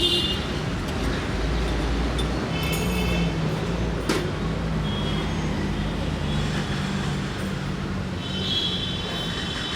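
Street traffic noise, with a vehicle engine humming steadily through most of it and one sharp click about four seconds in.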